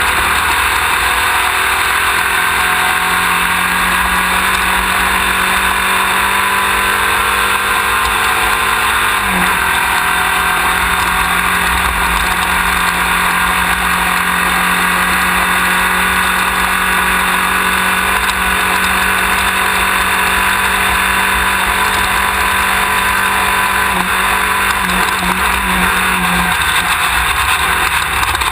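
Class 1600 off-road race buggy's air-cooled VW engine running hard at speed, heard through an onboard camera mounted at the rear. The engine note holds steady, steps sharply about nine seconds in and wavers near the end.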